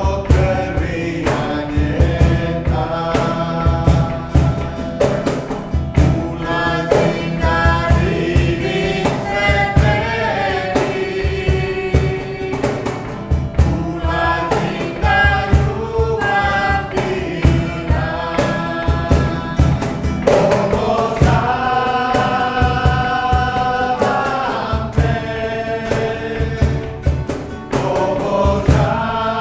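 Worship song sung in Croatian by a man and a woman together, with a second man's voice, over a strummed acoustic guitar keeping a steady beat.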